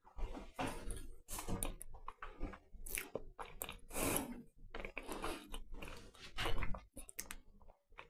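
A person chewing a mouthful of soft lemon sponge dumpling, picked up close by a clip-on microphone: irregular short mouth noises.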